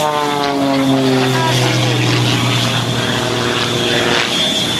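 Aero L-39 Albatros jet trainer's single turbofan engine whining as the jet rolls along the runway past, the pitch of its whine falling steadily as it goes by and moves away.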